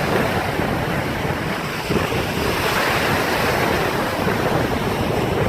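Sea waves breaking and washing on the shore, one wash swelling about halfway through, with wind buffeting the microphone.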